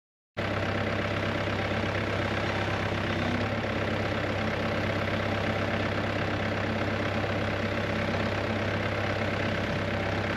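Hyundai mini excavator's diesel engine running at a steady pace, cutting in abruptly about half a second in.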